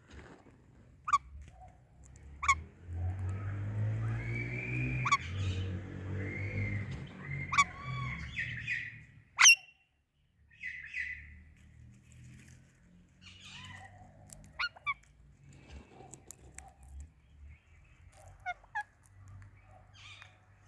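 Indian ringneck and Alexandrine parakeets calling: short sharp screeches every second or two, the loudest about nine and a half seconds in, with warbling chatter between the first few, then softer scattered chirps.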